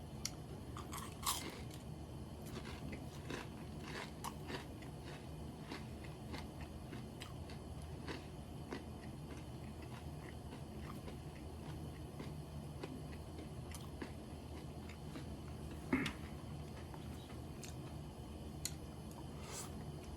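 Close-up chewing and crunchy bites of Japanese fried chicken (karaage), with scattered crisp crunches coming in clusters and the loudest bite about 16 seconds in, over a steady low hum.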